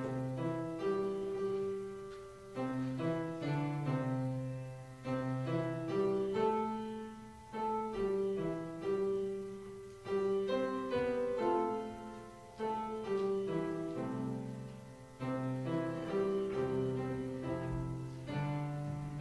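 Piano playing a hymn tune in full chords, each struck chord fading before the next.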